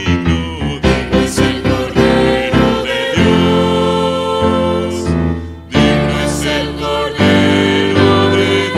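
Church vocal quartet of women's and a man's voices singing a hymn in harmony, accompanied on a keyboard. Short struck chords at first, then long held notes that break off briefly about five and a half seconds in.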